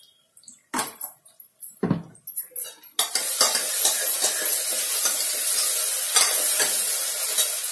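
A few clinks and knocks of a spoon and steel bowl as water goes onto ground spices. About three seconds in, a steady loud sizzle starts, with spoon scrapes and knocks, as the onion and ginger-garlic paste fry and are stirred in oil in the pressure cooker on the gas burner.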